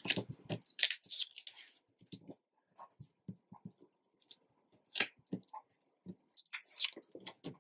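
Backing paper being picked and peeled off strips of double-sided tape on a sheet of craft paper: scattered small fingernail clicks and scratches, with short crackly peeling and paper rustles about a second in and again near the end.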